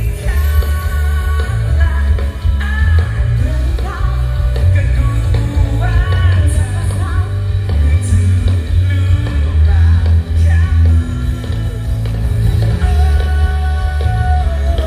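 Live band music played through large stage PA speakers: a singer's voice carries the melody over a heavy, booming bass.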